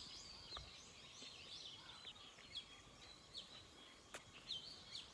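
Faint birdsong from trees: many short chirps and quick gliding whistles, with a single sharp click about four seconds in.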